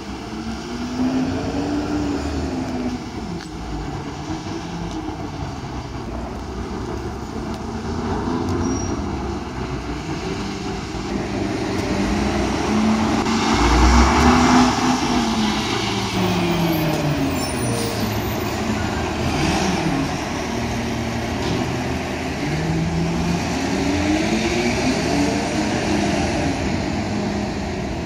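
Porsche 981 Boxster's flat-six engine driving in city traffic, its revs rising and falling several times, loudest about halfway through as the car passes close by. Other traffic, including a truck, runs underneath.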